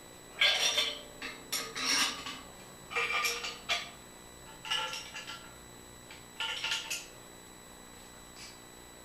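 Metal tools and parts being handled, clinking and clattering in about five short bursts, with a faint clink near the end.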